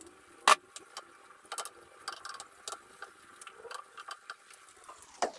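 Wooden spatula knocking and scraping in a frying pan as sliced mushrooms are tipped in and stirred: irregular light taps, with one sharp knock about half a second in.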